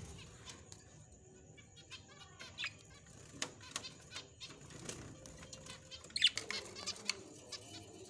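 Small cage birds: wings fluttering, with scattered light clicks and scratches, and a short high bird call about six seconds in.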